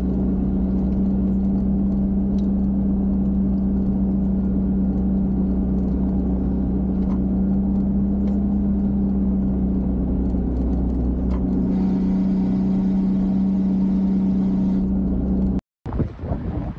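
Mitsubishi Fuso Canter 4x4 truck driving at a steady road speed: an even engine and road drone with a steady low hum. It cuts off suddenly near the end, and wind buffets the microphone.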